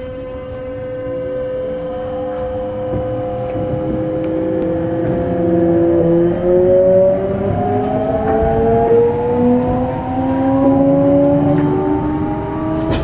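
Running sound inside a Kintetsu 5200 series motor car as the train accelerates: traction motor and gear whine rising steadily in pitch over the rumble of the wheels, with a steady tone near the start that fades away.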